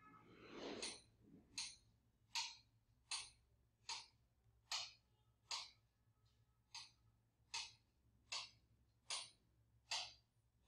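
Faint, regular sharp ticks, about one every three quarters of a second, steady throughout, with a brief soft rush of noise in the first second.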